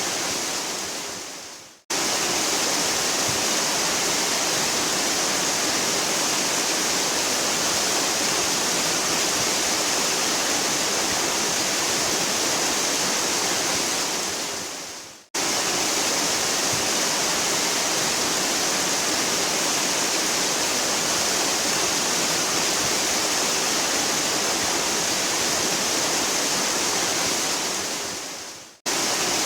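Waterfall: a steady, hissy rush of falling water. The sound fades out over about a second and cuts straight back in, three times at about 13-second intervals.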